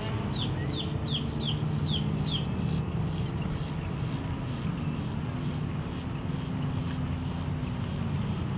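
Volvo Penta 5.7 GL V8 inboard of a 22-foot cruiser running steadily at low speed, with a slight shift in pitch about halfway through. A bird calls a quick run of about six short falling chirps in the first couple of seconds.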